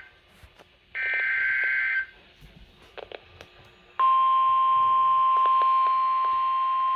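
Emergency Alert System tones: about a second in, a roughly one-second burst of warbling two-pitch SAME digital data. From about four seconds in, a single steady high beeping tone near 1 kHz, the NOAA Weather Radio 1050 Hz warning alarm that comes before a warning message.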